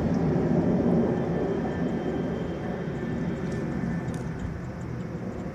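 Jet engines of a formation of military display jets flying overhead, a low, steady noise that slowly fades as they pull away.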